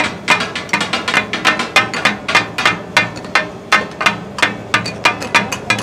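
Two steel spatulas chopping and clanging on a large iron griddle (tawa) in a quick, uneven rhythm of about three or four strikes a second, mincing goat liver and kidney for taka-tak over sizzling fat.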